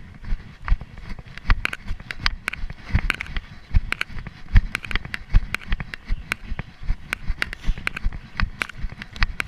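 Running footsteps on a forest floor of moss, needles and twigs, picked up by a chest-mounted camera: a steady run of thumps and crackling steps, a heavy thump about every second stride.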